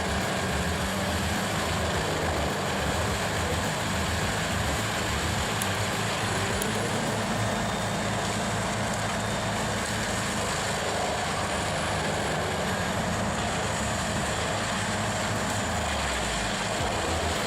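CBI Chipmax 484 wood chipper running steadily under its 765-horsepower Cat C18 diesel engine while chipping poplar, a constant heavy machine drone with a low engine hum.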